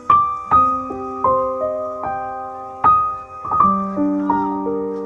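Background piano music, single notes and chords struck every half second or so and left to ring.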